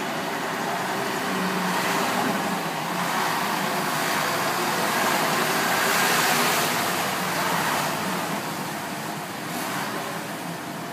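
Road traffic noise from a passing vehicle, swelling to a peak about six seconds in and then fading away.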